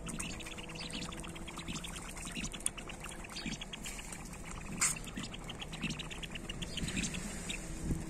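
Feral pigeons cooing in short low tones that come and go, over rapid light clicking and crunching on gravel, with one sharper click about five seconds in.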